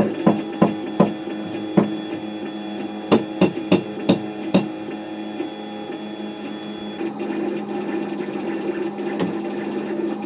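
Stepper motors of a home-built 3D printer running in steady humming tones as the print head moves. About ten sharp clicks come in the first half, and a busier buzzing stretch follows in the second half.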